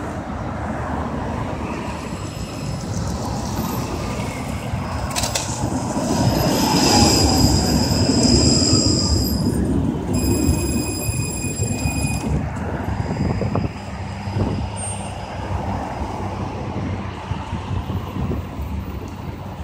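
A 71-931M Vityaz-M low-floor tram running along its rails and passing close by. It is loudest about a third of the way in, with high steady squealing tones over the rumble as it goes past.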